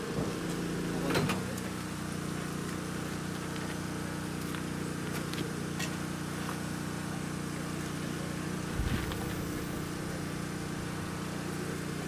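A steady machine hum with a low, even drone, with a click about a second in and a low thump near the end.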